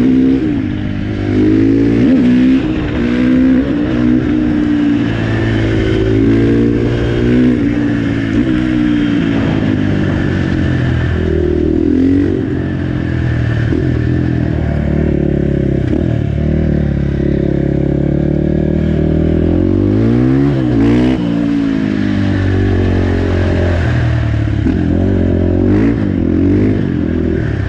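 KTM 450 single-cylinder four-stroke supermoto engine under way, revving up and dropping back repeatedly as it goes through the gears, with a quick rev blip about two-thirds of the way through.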